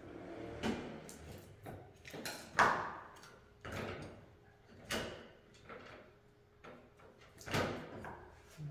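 A run of irregular knocks and clatters from objects being handled and set down, the loudest about two and a half seconds in.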